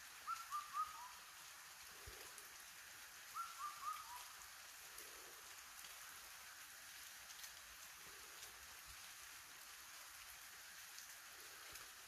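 Steady rain falling, with a bird calling twice in the first few seconds: each call a short phrase of three hooting notes and a lower fourth.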